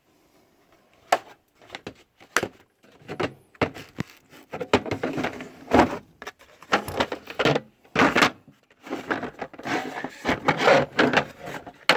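Metal sockets and hand tools clinking and clattering in a steel tool box drawer as they are handled and moved about. It is a string of sharp knocks and rattles that grows busier about halfway through.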